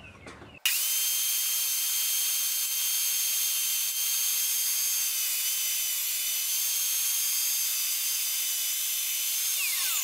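Table saw running as it rips a scrap of western red cedar with the blade tilted for a bevel cut: a steady high whine over a hiss that starts abruptly about half a second in, sags slightly in pitch through the middle, and falls away just before the end as the saw winds down.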